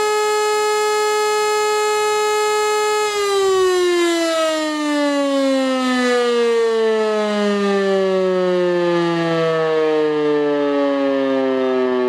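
E57 electric motor siren sounding a steady tone, then winding down after about three seconds, its pitch falling smoothly as the rotor coasts: the end of one of the tones of the German "Feueralarm" signal during a test alarm.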